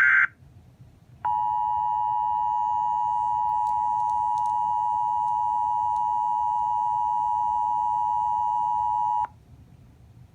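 Emergency Alert System attention signal: two steady tones sounding together (853 and 960 Hz) begin about a second in, hold for about eight seconds and cut off sharply, announcing a tornado warning broadcast. At the very start, the tail of a loud, shrill SAME digital header burst cuts off.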